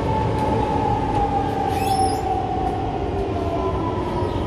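Siemens C651 MRT train running, its traction motor whine falling slowly in pitch as the train slows, over the steady rumble of the wheels on the track. A brief high squeal, likely from the wheels, sounds about two seconds in.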